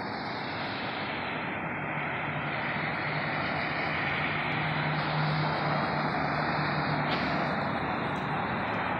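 A silver B8 Audi S4 approaching and going by on the road, its engine and tyres a steady roar that slowly grows louder as it nears.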